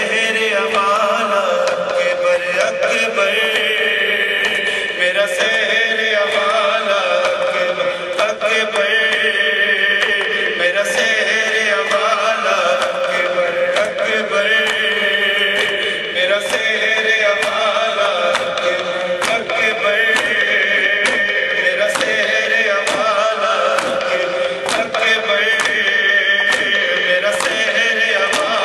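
Male reciter chanting an Urdu noha (Shia lament) through a microphone and PA, in a drawn-out wailing melody. Sharp regular slaps, about one a second, run under it: men beating their chests in matam.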